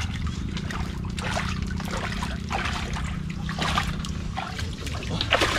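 Shallow river water splashing and sloshing irregularly as a person wades and drags an inflatable boat up to the bank, over a steady low hum.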